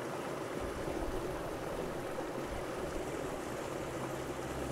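Shallow stream water rushing steadily over stones.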